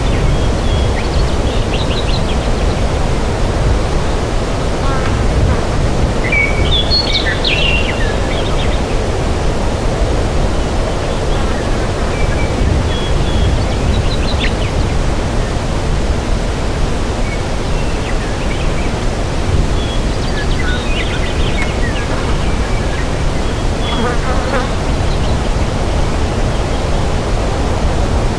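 Forest ambience: a steady, loud rushing hiss with short, high bird chirps scattered over it, busiest about seven seconds in and again around twenty-one seconds.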